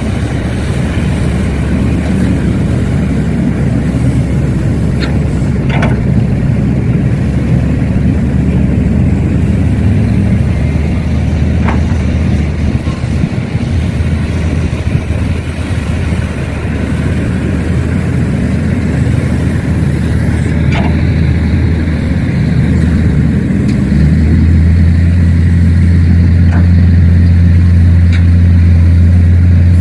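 Heavy-equipment engine running with a steady low drone, its pitch shifting as it works, then stepping up to a louder, steadier tone about 24 seconds in. A few faint short ticks sound over it.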